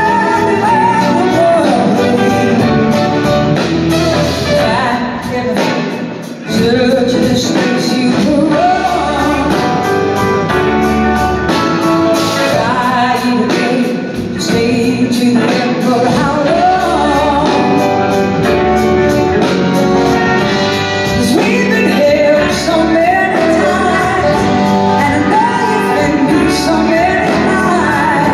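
A live blues-rock band playing a song: a lead singer over electric guitars, keyboards, a horn section and two drummers.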